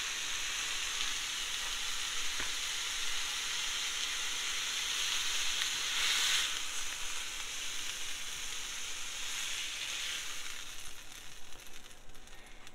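Ribeye steaks sizzling on the hot plate of a Cinder Grill in sear mode at about 450 degrees, a steady fat-spitting hiss that swells about halfway through and dies down near the end.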